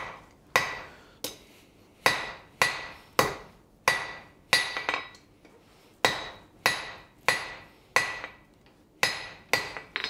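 Hand hammer striking red-hot steel bar on an anvil, drawing out a long taper: steady blows about one and a half a second, each with a short metallic ring, in runs broken by brief pauses.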